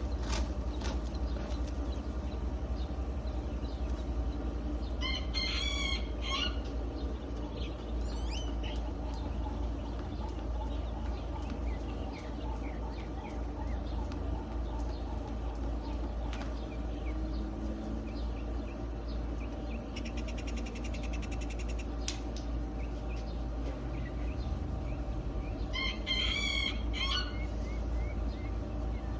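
A rooster crowing twice, once about five seconds in and again near the end, each crow lasting about a second and a half, over a steady low rumble.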